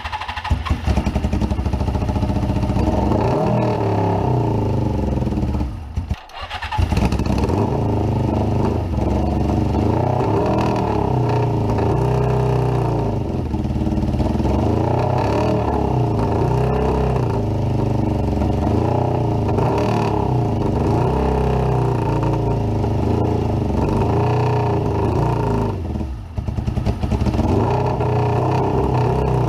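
Suzuki GS550 air-cooled inline-four motorcycle engine running on carb cleaner sprayed into the intakes, its revs rising and falling, briefly dropping away about six seconds in and again near the end. It is being kept alive on the spray because petrol is not getting through the carburettors (fuel starvation).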